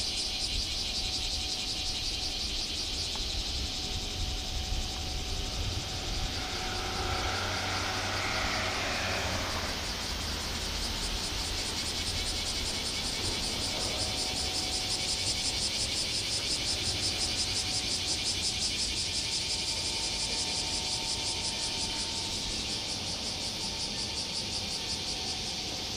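Summer insects buzzing steadily in a high, fast-pulsing drone, over a low rumble.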